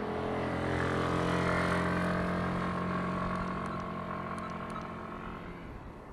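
A motor vehicle driving past on the road, its engine hum swelling over the first second or two and then fading away.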